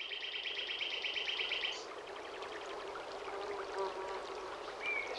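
Natural outdoor ambience: a rapid buzzing trill for about the first two seconds over a steady low hum, then a few faint bird chirps.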